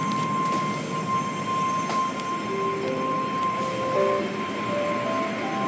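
Automatic car wash tunnel machinery running: a steady rushing din of spray and brushes with a constant high hum. About halfway through, a string of short tones at changing pitches joins it.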